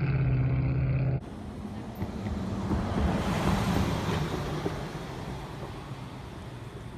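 A car driving past: road noise swelling to a peak about three seconds in, then slowly fading. Before it, a steady low engine hum cuts off abruptly just after a second in.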